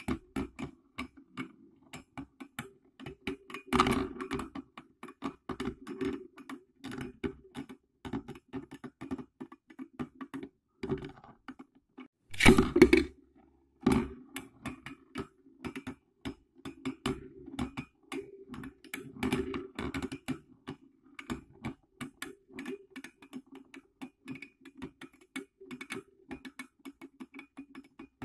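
Two Beyblades, one with a metal wheel, spinning against each other in a plastic dish stadium: a steady rattling hum with rapid irregular clicks as they knock together. There are two louder clashes, about four seconds in and again near the middle.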